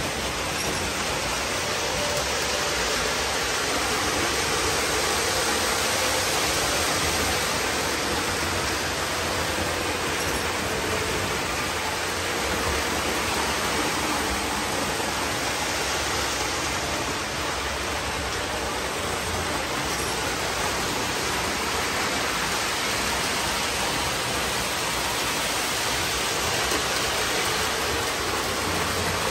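O gauge model trains running on the layout: a steady, even rolling noise of wheels and motors on the track, with no rhythm or whistle standing out.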